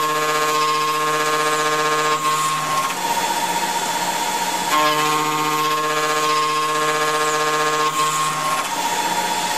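CNC machine running with a steady pitched motor whine over a low hum. The hum cuts out about three seconds in, comes back near five seconds and drops out again near the end, while a higher tone carries on.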